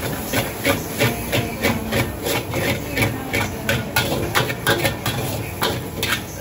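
Cleaver chopping on a thick wooden chopping block in a steady rhythm of about three strokes a second.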